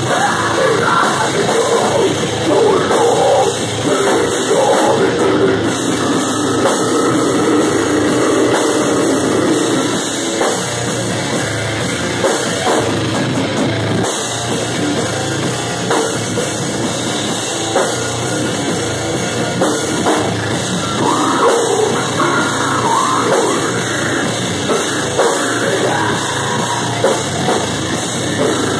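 Live heavy metal band playing loud and without a break: a pounding drum kit under amplified guitars, picked up by a phone's microphone.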